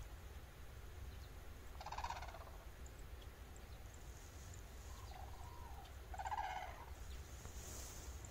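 Red-crowned cranes calling: two short calls, about two seconds in and about six seconds in, with a softer call just before the second.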